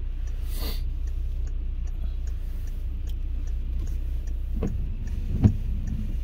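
Inside a car's cabin: the engine idling as a steady low rumble, with a light, regular ticking of the turn-signal relay. Near the end, two short thumps about a second apart as the windscreen wipers sweep.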